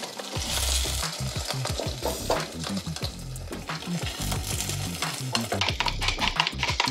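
Frozen scallion pancake frying in oil in a nonstick pan, with a steady sizzle, while wooden chopsticks scrape and lift its edges.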